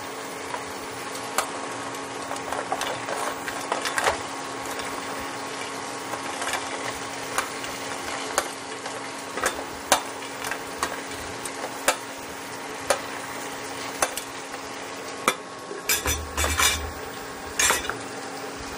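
Sauce sizzling in a steel pan as fried chicken pieces are added and stirred in with a spatula. The spatula clicks and scrapes against the pan about once a second, with a busier run of knocks near the end, over a steady hum.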